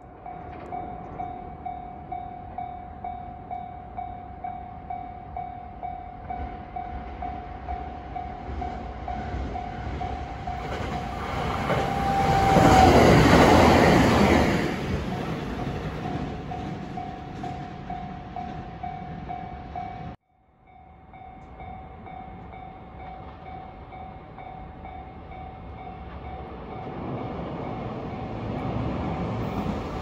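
Railway level-crossing alarm ringing in steady, evenly paced electronic dings while a 521-series electric multiple unit passes, its wheel and motor rush swelling to the loudest point about halfway through and then fading. After a sudden cut the crossing alarm rings again as another train approaches, its noise rising toward the end.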